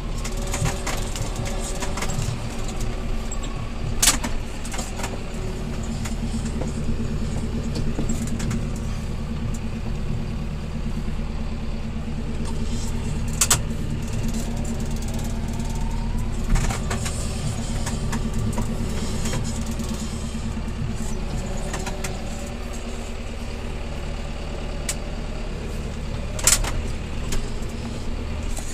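Tractor engine running steadily with a low drone, heard from inside the cab while it pulls a boom sprayer across the field. Four sharp knocks stand out over it.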